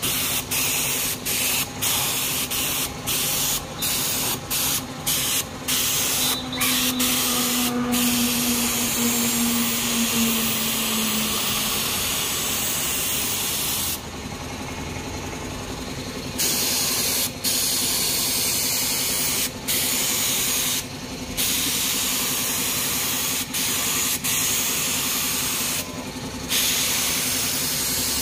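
Black paint being sprayed onto a motorcycle alloy wheel: a loud hiss in repeated passes, cut by many brief stops, with longer pauses about halfway through and near the end. A steady low hum runs underneath.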